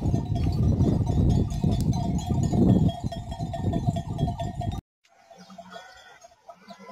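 A flock of sheep and goats bleating and milling about. It cuts off abruptly about five seconds in, leaving only faint sound.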